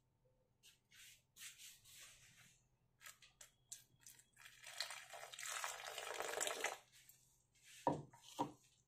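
Water poured from a jug into a ceramic bowl of gram flour for about two seconds, after short scrapes of a metal spoon stirring the dry flour. Two short thumps near the end.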